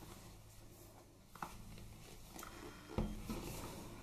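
Faint handling of a cardboard packaging box: light rubbing and small ticks, with a soft knock about three seconds in, as the inner box comes out of its cardboard sleeve and is handled.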